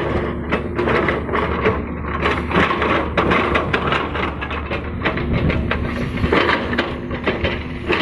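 Excavator diesel engine running steadily while the bucket scrapes and crunches through soil and stones, with many short cracks and knocks over the engine hum.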